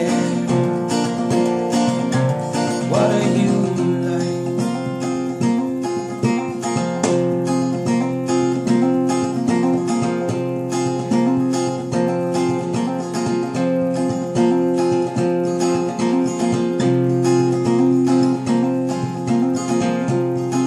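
Acoustic guitar with a capo, strummed in a steady rhythm with the chords ringing.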